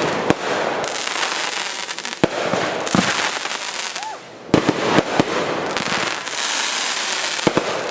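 Consumer fireworks going off in a backyard show: a dense, continuous crackle of bursting effects with a number of sharp bangs from shells bursting scattered through it.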